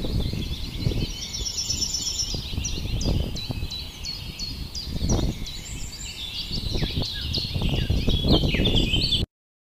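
Several small birds chirping and twittering over a low, uneven rumble of outdoor noise; the sound cuts off suddenly near the end.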